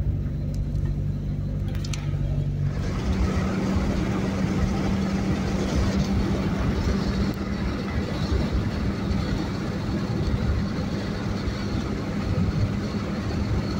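Cabin sound of a Suzuki Swift GTi hatchback on the move: a steady engine hum with road noise. About three seconds in the sound cuts to louder road and wind noise with a steady engine drone as the car cruises on the highway.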